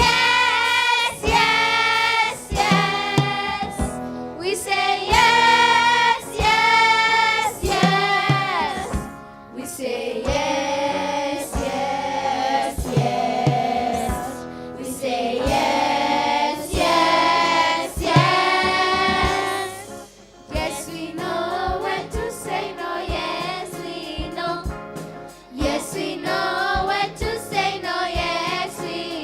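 A choir of voices singing a song, with a steady percussive beat behind it.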